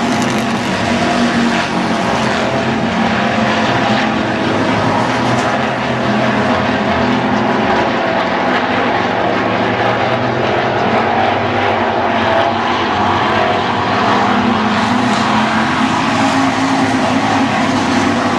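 Hobby-class stock car engines running at speed in a heat race, a loud, steady, continuous drone of several engines.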